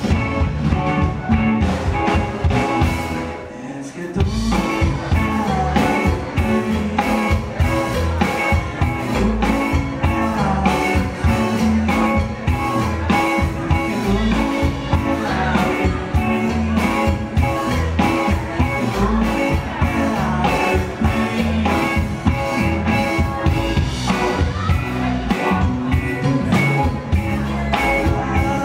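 Live rock band playing: electric guitar, electric bass and drum kit with a steady beat, and a man singing at times. The band thins out briefly about three seconds in, then comes back in full.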